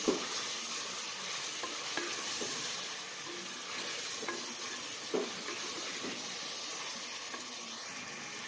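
Meat and ginger-garlic paste frying in oil in a metal pressure-cooker pot with a steady sizzle, stirred with a wooden spoon that scrapes and knocks against the pot now and then, the loudest knocks right at the start and about five seconds in.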